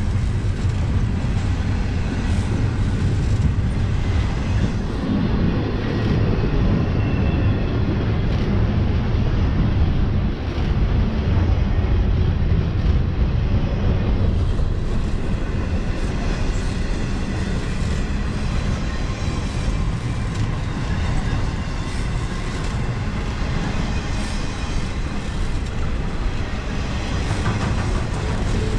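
Double-stack intermodal well cars rolling past at close range: a steady, loud noise of steel wheels on rail, with faint wheel clicks over rail joints in the later part.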